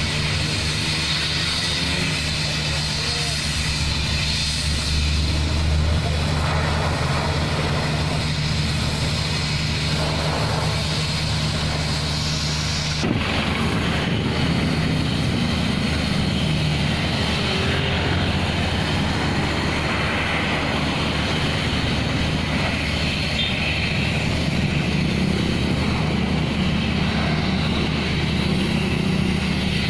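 Engines running steadily under a broad rushing noise, with road-patching equipment at work. About 13 seconds in the sound cuts to a small portable engine unit feeding a hose that a worker aims into a pothole.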